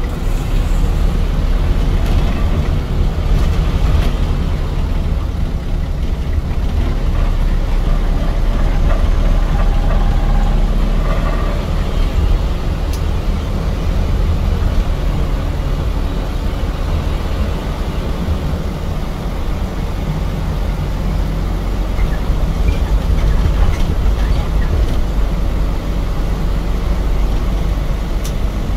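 Shuttle bus running, a steady low engine and road rumble heard from inside the bus.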